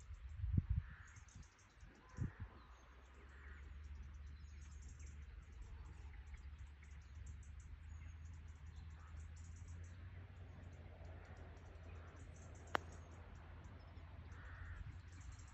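One sharp click of a golf iron striking the ball on a short chip shot, about three-quarters of the way through, over steady wind rumble on the microphone with a couple of stronger gusts near the start. Birds chirping softly now and then.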